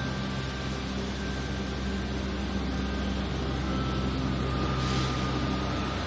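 Steady rushing water from a plaza fountain over a low, even hum of city traffic, with a brief hiss about five seconds in.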